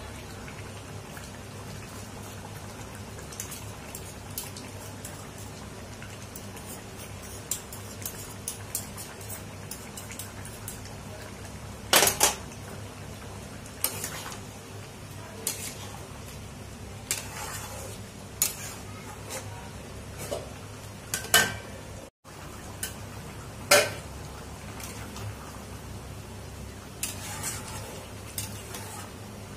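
Metal spatula scraping and knocking against a metal kadai as thick curry is stirred: irregular scrapes and clinks, with a few louder knocks, over a steady low hum.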